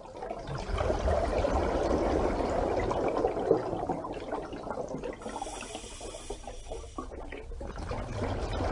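Water sound effect: a steady rushing, splashing wash of water that builds up in the first second, eases off in the middle and swells again near the end.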